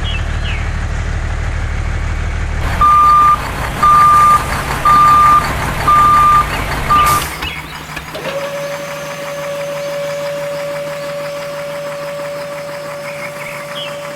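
A reversing beeper sounds five loud beeps, about one a second, over the low hum of a small motor. Then a small electric motor spins up to a steady whine that holds to the end.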